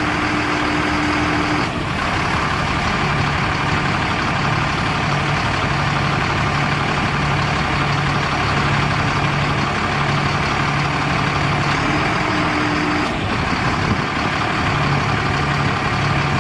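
Caterpillar 3116 inline-six turbo diesel engine of a 1997 GMC C7500 truck running steadily at idle.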